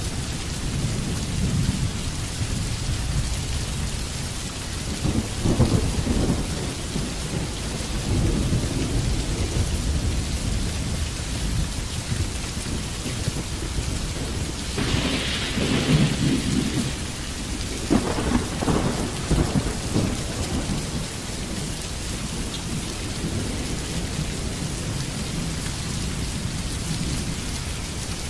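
Steady rain falling, with low rumbles of thunder that swell and fade several times.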